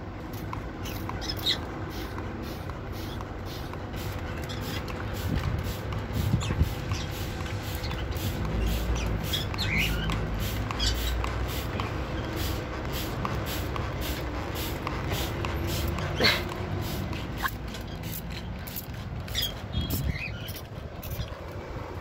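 Indian ringneck parakeets giving a few short, scattered calls, the loudest about two-thirds of the way in, over a steady low rumble and hiss.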